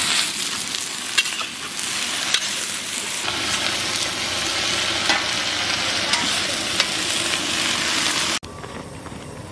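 Freshly chopped radish greens sizzling as they are tipped into hot mustard oil in a kadai, with a few sharp clicks over the steady hiss. The sizzle cuts off suddenly near the end.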